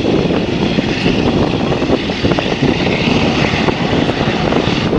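Singapore Airlines Airbus A380's four Rolls-Royce Trent 900 turbofans at takeoff thrust: a loud, steady, rough rumble with crackle as the jet rolls down the runway.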